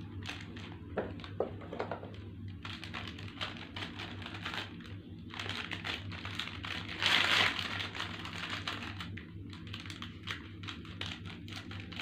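Plastic snack-packet wrapper crinkling as it is handled and opened, in quick irregular rustles, with a louder, longer rustle about seven seconds in.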